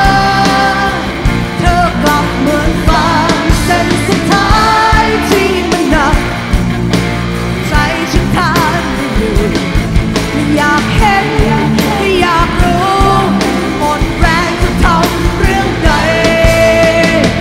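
A woman singing a Thai rock song live, backed by a full rock band with electric guitar, bass and drums.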